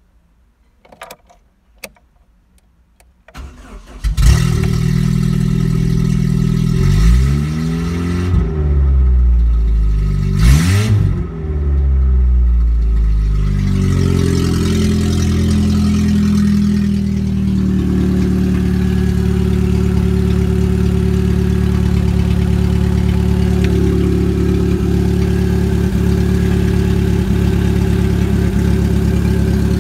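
A few faint clicks, then an Opel Astra F's 1.6-litre C16NZ four-cylinder petrol engine cranks briefly and starts about four seconds in. It is revved a few times, each rev rising and falling in pitch, then settles to a steady idle.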